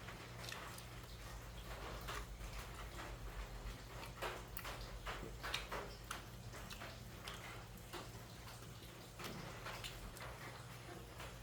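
Someone eating close to the microphone: irregular wet smacks and clicks of chewing and lip smacking, over a steady low hum.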